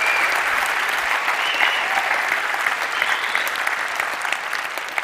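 Audience applauding in a large hall, a dense steady clapping that starts to fade near the end.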